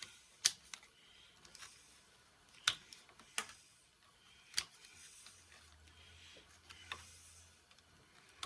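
Light metallic clicks and taps of a screwdriver and small parts being worked while a drill press head is taken apart, about five sharp ones spread irregularly, with faint scraping in between.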